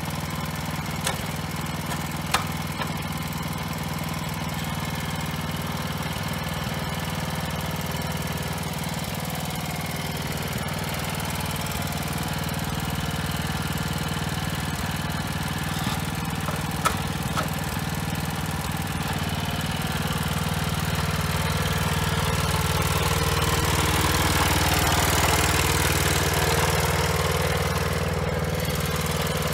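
Robin 6 hp single-cylinder engine on an ST41 walk-behind tiller running steadily while the machine is driven along. It grows louder in the last third as the tiller comes close. A few sharp clicks are heard over it.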